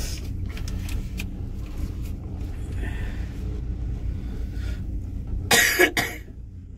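A person coughs twice in quick succession near the end, over a steady low rumble.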